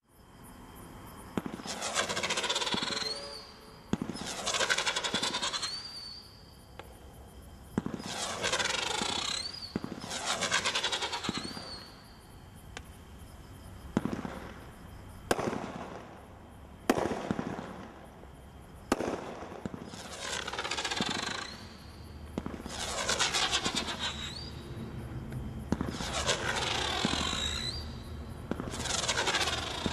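Brothers Pyrotechnics Hillbilly Armor 200-gram firework cake firing shot after shot, roughly every two seconds. Each shot is a sharp pop followed by a gliding whistle, with a few plain sharp bangs midway.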